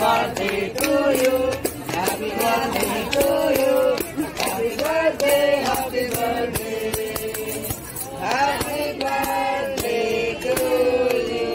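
A group of voices singing a birthday song together, with steady rhythmic hand clapping.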